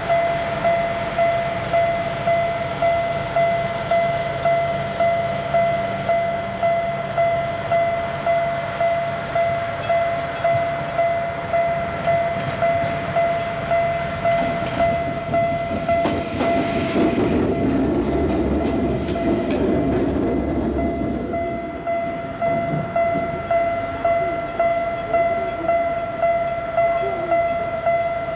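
Japanese level-crossing alarm ringing its steady electronic bell, about three strikes every two seconds. About halfway in, railcars being pushed over the crossing add a rumble of wheels on the rails that swells and fades over several seconds.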